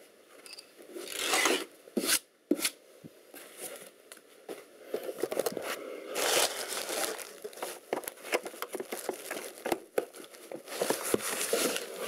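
Crinkling and rustling of soft packing material and cardboard as hands dig through a shipping box, in uneven patches, with a couple of sharp knocks about two seconds in.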